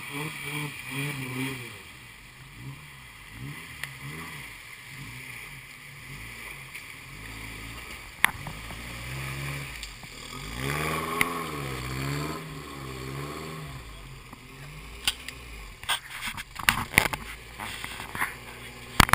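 Toyota pickup truck's engine revving up and down in waves as it drives through a muddy river and climbs out past the camera, with water splashing around it. Near the end, a quick run of sharp clicks and knocks from the camera being handled, the last one the loudest.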